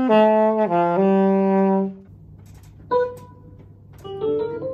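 Alto saxophone playing a short phrase of about seven notes that rises, falls and ends on a held note, cutting off about two seconds in. A quieter run of quick, higher notes starts near the end.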